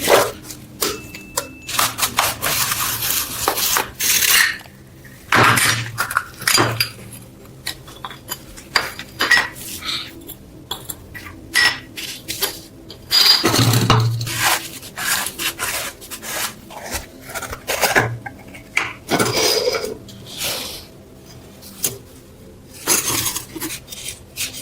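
Small metal parts being handled: irregular clinks, taps and knocks, with several longer metal scrapes in between.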